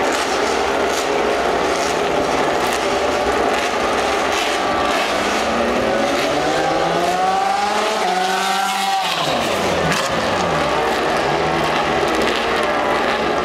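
A motor vehicle engine passing close by: its pitch climbs for a few seconds as it approaches, then drops steeply about nine seconds in as it goes past, over a steady background of trackside crowd noise.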